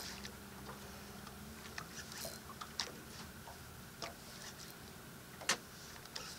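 Fishing reel cranked slowly under the heavy load of a hooked yellowtail: irregular light clicks and ticks, one sharper click about five and a half seconds in, over a faint steady low hum.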